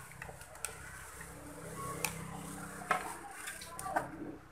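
Light clicks and small metallic taps from hand tools being worked on a television's circuit board, over a faint steady low hum.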